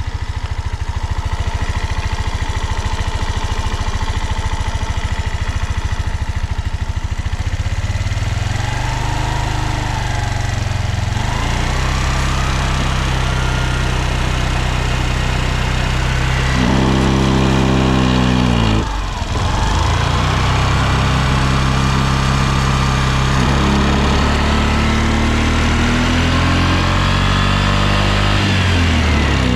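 Suzuki Address V125S scooter's single-cylinder four-stroke engine idling steadily, then revved with the throttle: the engine speed climbs from about eight seconds in, drops sharply as the throttle is shut a little before two-thirds of the way through, and climbs again before falling near the end. The seller describes it as running without abnormal noises.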